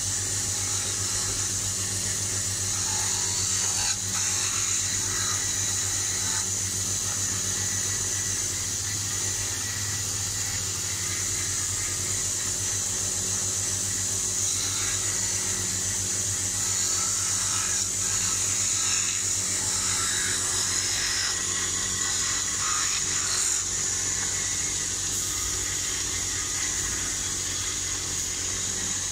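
A small electric wood lathe running steadily with a constant low hum. A hand tool pressed against the spinning wood makes a steady high hiss with intermittent scraping.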